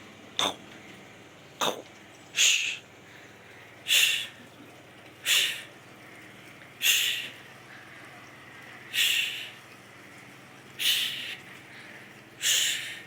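A cat giving short, breathy bursts about every one and a half to two seconds, nine in all; the first two are brief and sharp.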